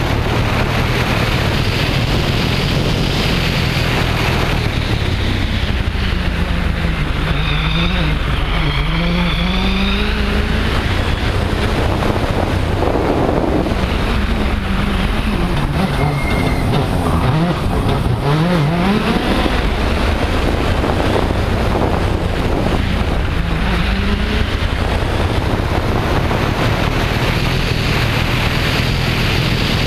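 Citroën DS3 WRC's turbocharged four-cylinder rally engine driven hard, its revs climbing and dropping again and again through gear changes, under a steady rush of wind and road noise on the car-mounted camera.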